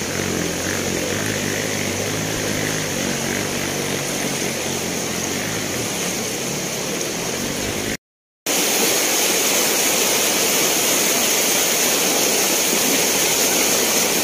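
A motor engine running steadily over a noisy background. After a brief dropout about eight seconds in, it gives way to a steady rushing noise with no engine in it.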